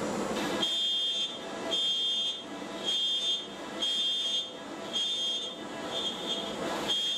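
CNC router spindle drilling dowel holes into the spoil board: a high whine that comes and goes about once a second, seven times.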